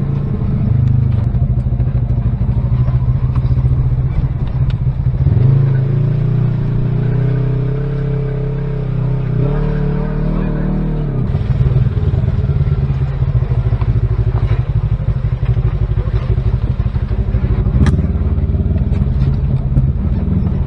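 Side-by-side UTV engine running under changing throttle, heard from inside the cab, its pitch climbing and falling about midway, then a rougher, uneven running with occasional sharp knocks as it crosses the rough trail.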